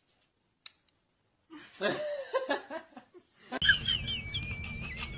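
A person giggling for about two seconds. Then, from about three and a half seconds in, a steady low hum and a thin, high held tone lasting over a second.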